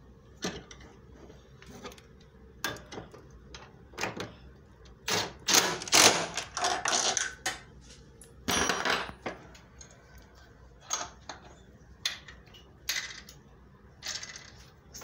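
Irregular metal clicks and clanks of hand tools and hardware being worked on a bench vise mounting, with a louder run of clattering about five to seven seconds in and another short burst near nine seconds.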